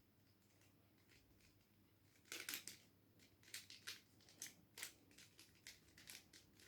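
Faint plastic clicking of a 3x3 mirror cube's layers being turned by hand, a quick run of turns starting about two seconds in.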